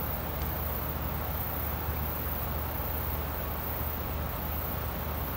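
Steady outdoor background noise: a low hum with a faint high chirp repeating evenly, about three to four times a second.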